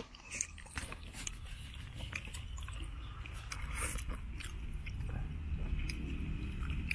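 People eating: chewing, with scattered small crunches and clicks, over a low steady rumble.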